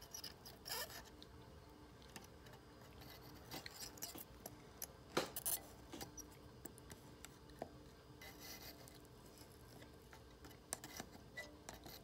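Soldering iron tip scraping and tapping lightly against a brass wire lead on a slot car chassis as it is soldered in: faint scattered clicks and scrapes, the sharpest about five seconds in.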